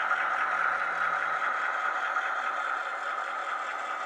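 HO scale model train running: a diesel locomotive model pulling covered hopper cars along the track, a steady whir that fades slightly as it moves away.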